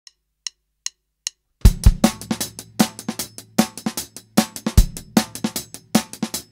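Four quick clicks counting in, then a drum kit comes in about a second and a half in, playing a steady beat with bass drum, snare and hi-hat over a low sustained bass line.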